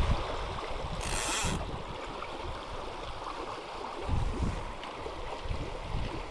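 Fast, shallow river water rushing over stones, with wind buffeting the microphone in low gusts. A brief hiss about a second in.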